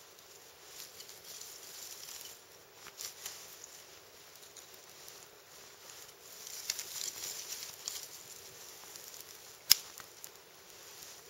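Small campfire of twigs just catching, crackling with scattered small pops and one sharp crack near the end.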